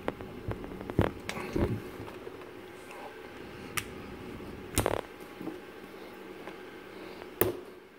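A few scattered, sharp plastic clicks and taps as a cap is pressed onto the top of a plastic valve-position indicator by hand, over a faint steady hum.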